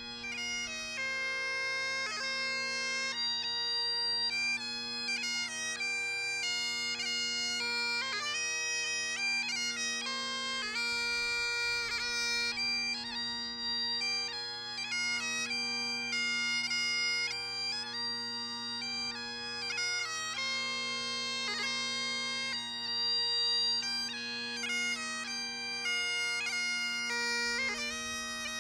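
Bagpipes playing a slow tune over steady, unbroken drones, the melody moving from note to note with quick grace notes between.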